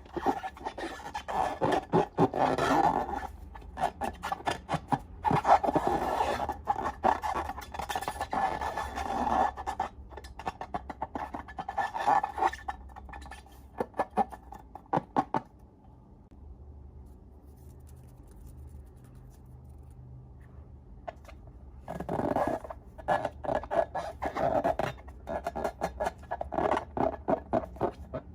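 Slime being squished and worked, giving bursts of sticky crackling and clicking, with a pause of several seconds just after the middle.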